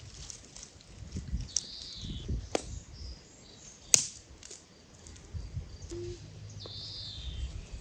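Dry branches being broken up by hand and dragged over gravel: rustling and crackling wood with a couple of sharp snaps, the loudest about four seconds in.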